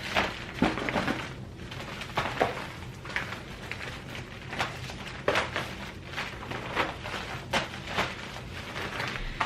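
Handling noises from fitting a plastic stroller rain shield: irregular rustling, knocks and clicks as the cover and its straps are fastened.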